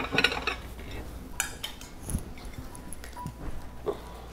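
Light kitchen clatter: a few scattered clinks and knocks of dishes and utensils being handled, with a short metallic rattle at the start and another about a second and a half in.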